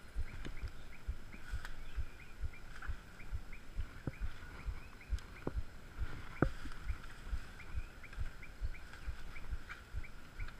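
A chorus of small animals giving short rising chirps, about three a second, over the low thumps of footsteps and brush being pushed through. A few sharp knocks stand out.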